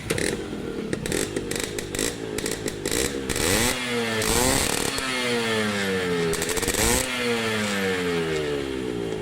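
Yamaha RX100's air-cooled two-stroke single-cylinder engine breathing through a three-chamber aftermarket silencer, running at idle, then revved three times, each blip rising quickly and dying away slowly.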